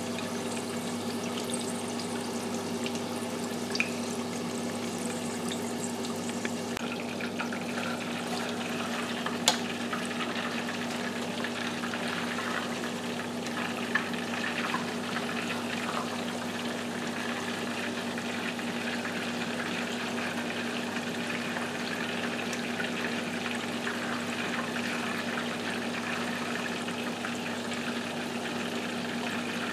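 Battered chicken wings deep-frying in hot peanut oil in a stainless steel pot: a steady bubbling sizzle and crackle. A few sharp clicks of wooden chopsticks against the pot as the wings are turned.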